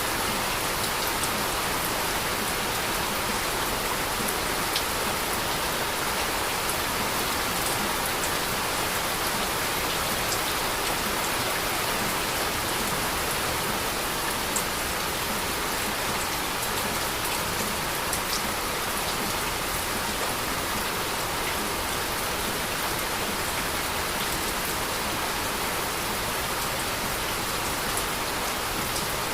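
Heavy rain falling steadily, an even dense hiss of rain on surfaces with scattered sharper drop ticks.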